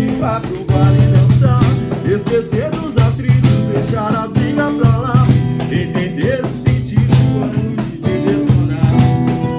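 A live band playing a song in rehearsal: guitar and drum kit over a rhythmic bass line, with a wavering melody on top.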